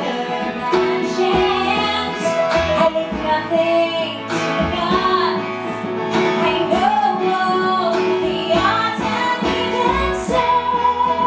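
A woman sings a musical-theatre song live into a handheld microphone, with held notes, over instrumental accompaniment.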